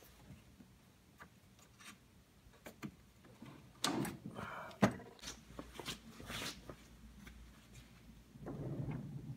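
A plywood drawer box pulled out of a wooden mobile storage cart: wooden knocks and sliding from about four seconds in, with one sharp click about five seconds in. Near the end, a low rumble as the cart is moved on its casters.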